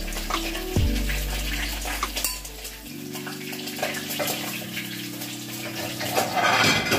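Kitchen tap water running, with dishes and utensils clinking against each other; a louder rush of water comes near the end. A low steady hum runs underneath.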